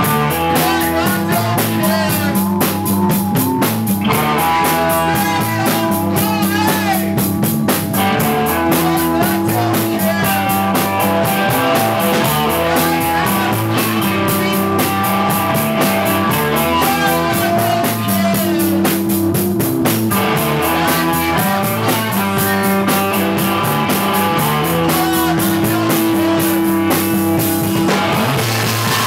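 Rock band playing a song with guitar and drum kit, loud and steady throughout.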